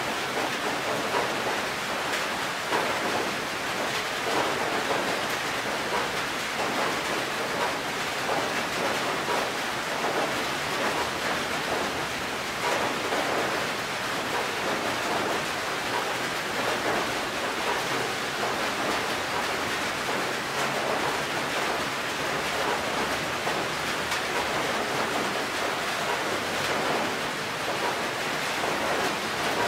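Steady rain falling on a corrugated metal roof: a dense, even hiss of drops.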